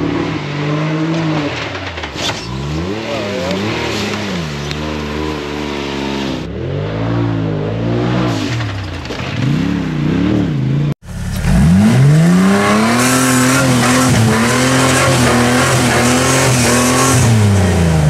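Side-by-side UTV engine revving up and down again and again as the throttle is worked. About eleven seconds in the sound cuts out for an instant, then comes back louder, held at high revs for several seconds and easing off near the end.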